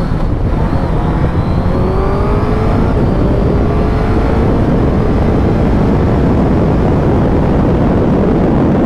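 Suzuki GSX-S1000GT's inline-four engine accelerating hard through the gears, its pitch climbing in each gear with upshifts near the start and about three seconds in. As speed builds, wind noise buffeting the helmet-mounted microphone grows and covers the engine.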